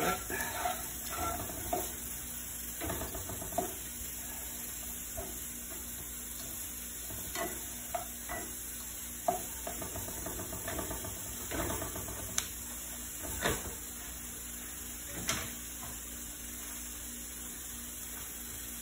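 Shrimp sizzling in vegan butter in a nonstick frying pan, with plastic spatulas scraping and ticking against the pan as the shrimp are turned. The ticks come thick at first, then scattered, and stop after about fifteen seconds, leaving only the steady sizzle.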